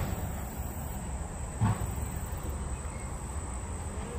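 Steady high-pitched insect trill over a low rumble, with a single dull thump about one and a half seconds in.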